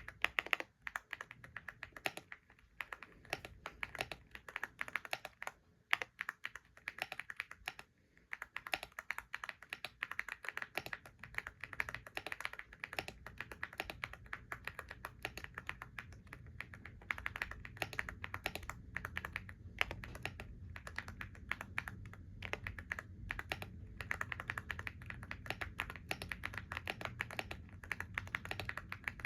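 Continuous typing on a computer keyboard: a fast, uneven run of key clicks with a few brief pauses.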